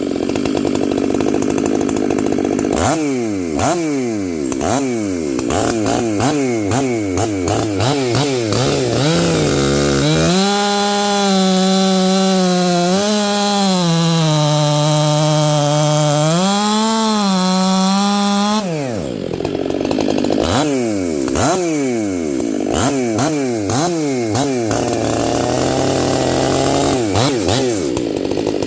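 Stihl MS 500i fuel-injected two-stroke chainsaw, running again after its no-start fault was fixed. It is revved in quick repeated blips, then held at full throttle for about eight seconds with the pitch sagging and recovering as it cuts through maple, then blipped again near the end.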